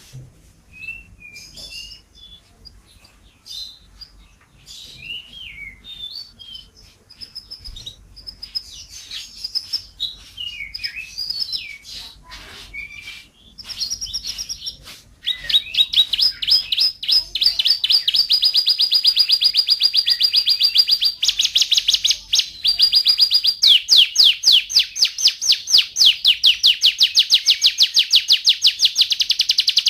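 Domestic canary singing: scattered chirps and whistled up-and-down glides, then from about halfway a much louder, fast rolling trill of rapidly repeated notes that runs on with small changes in pitch.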